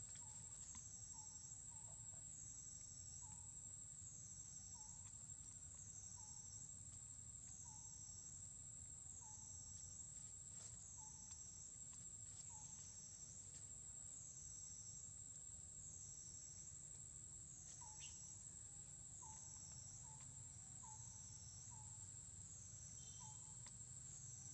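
Insects chirring: a steady high, shrill drone that swells in a regular pulse about every second and a half, with faint short chirps in between.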